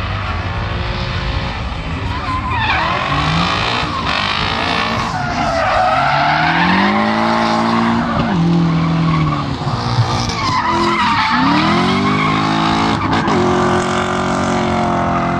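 Drift car's engine revving hard, its pitch climbing and falling repeatedly as the throttle is worked, with a dip about ten seconds in before it climbs again, over the hiss and squeal of rear tyres sliding sideways.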